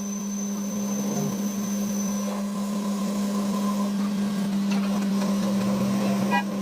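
A machine's motor running steadily with a constant hum, plus a faint high whistle that stops about two seconds in.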